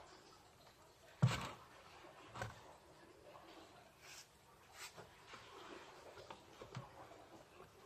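Quiet scuffling and small knocks from kittens moving about on a cardboard box among clutter, with a sharp thump about a second in as the loudest sound and a softer knock about a second later.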